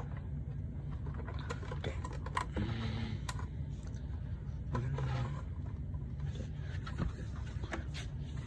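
Scattered light clicks and knocks of hands handling computer equipment and plugging in a cable, over a steady low hum.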